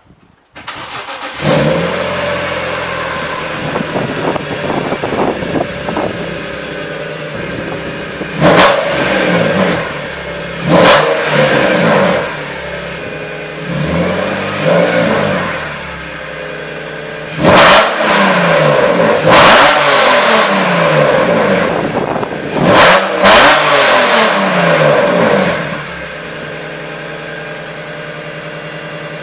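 BMW Z3 M Coupe's S54 3.2-litre inline-six fires up about half a second in, idles high and settles, then is revved in about six throttle blips, the pitch climbing and falling with each, before it drops back to a steady idle near the end.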